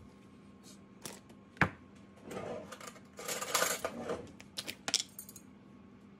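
A plastic tub of ricotta is set down on a kitchen counter with a sharp knock, followed by rustling and scraping as it is handled. A few quick clicks come about five seconds in as its snap-on plastic lid is pried off. A faint steady hum runs underneath.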